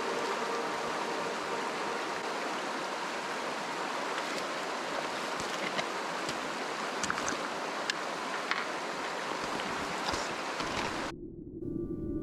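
Fast river water rushing over a shallow, rocky riffle: a steady rush with a few faint clicks. It cuts off abruptly about eleven seconds in, and soft ambient music with long held tones begins near the end.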